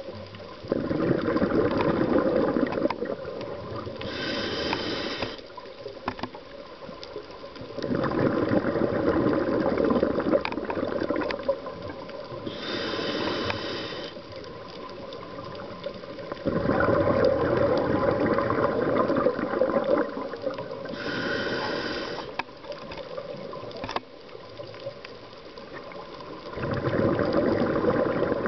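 Scuba diver breathing through a regulator underwater: four long bubbling exhalations, with a short hissing inhalation through the regulator between each, in a slow rhythm about every eight seconds.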